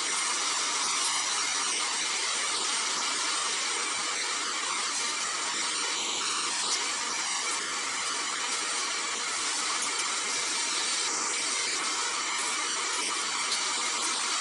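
Shop vacuum running steadily, drawing air through a length of clear plastic tubing held against a tube radio chassis to suck out dust.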